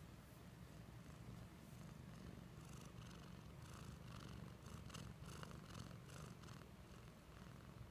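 Black Manx kitten purring steadily, a low, even rumble close to the microphone, with faint rustling from about two and a half seconds in.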